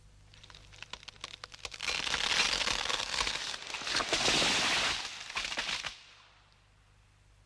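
Film sound effect of a blast: scattered crackles for about a second and a half, building into a loud, crackling rush that cuts off suddenly about six seconds in.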